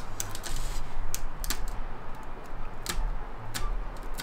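Irregular sharp clicks and taps of needles picking at brittle dalgona honeycomb sugar candy on plates.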